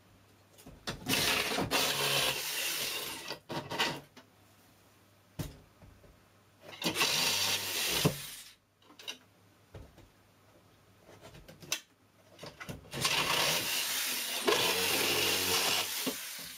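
Reciprocating saw with a long metal-cutting blade running in three runs of a few seconds each, the middle one shortest, as it cuts through the nails fixing a door jamb to the wall framing.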